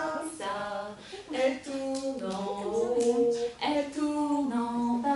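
A woman singing a French nursery rhyme unaccompanied, in held and gliding notes.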